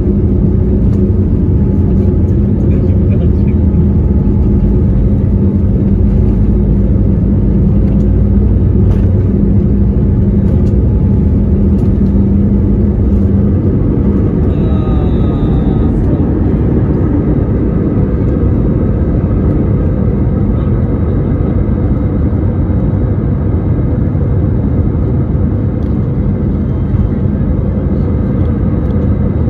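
Airliner jet engines at takeoff power heard from inside the cabin over the wing: a loud, steady rumble with runway noise. The heavy low rumble eases about halfway through as the wheels leave the ground, and the engine sound runs on more smoothly in the climb.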